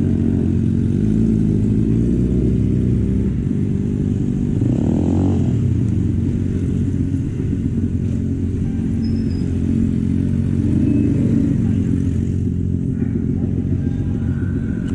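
Sport motorcycle engine running at low road speed, its revs rising and falling with the throttle.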